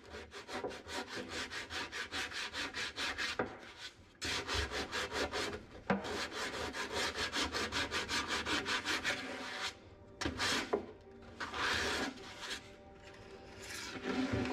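Hand sanding: abrasive paper on a hand sanding block rubbed quickly back and forth over cured fairing on a fibreglass boat surface, about five rasping strokes a second, with a short break near four seconds. The strokes stop about ten seconds in, and a few knocks and scrapes follow as the block is handled.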